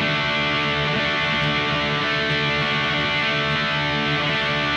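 Distorted electric guitar strumming a D major chord once and letting it ring out at a steady level.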